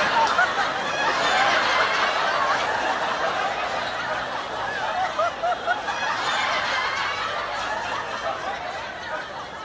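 A crowd of people laughing and chuckling together, many voices overlapping, loud at first and easing off slowly toward the end.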